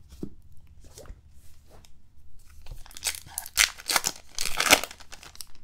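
A trading-card pack's wrapper torn open by hand: a few light rustles, then a loud run of crinkling and tearing from about three seconds in until near the end.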